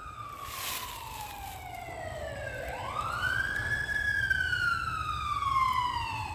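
Sheriff's vehicle siren wailing: the pitch falls, swings back up about two and a half seconds in, then slowly falls again, over a low rumble.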